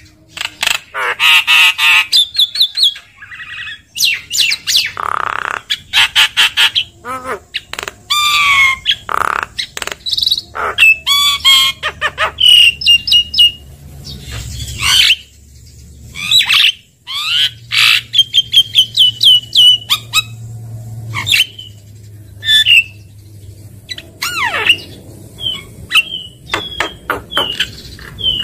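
Javan myna singing a varied song: whistled notes that rise and fall, harsh squawks, and rapid clicking rattles, one after another with only short pauses.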